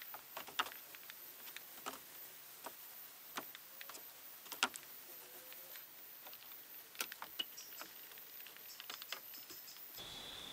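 Scattered light clicks and taps at an irregular pace, with a few sharper ticks standing out.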